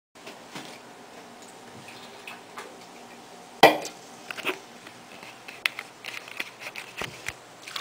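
Scattered knocks and clicks of things being handled on a sink countertop, the loudest a sharp knock about three and a half seconds in, over a faint steady hum.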